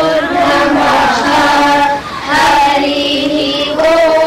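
Children singing in unison, a melodic chant of long held notes, with a short break for breath about two seconds in.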